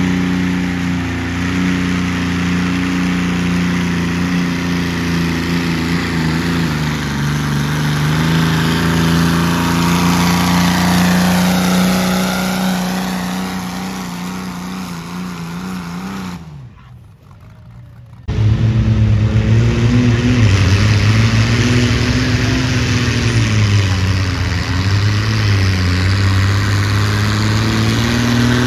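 Red International modified pulling tractor's engine running hard under load as it drags a weight-transfer sled, fading and falling in pitch as the pull ends. After a short break, a John Deere pulling tractor's engine runs with its pitch rising and falling as it is revved.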